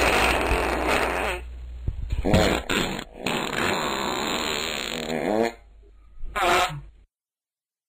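A run of fart sounds: a loud rasping noise at first, then several pitched farts of wavering pitch in quick succession, and one last short fart near the end before the sound cuts off.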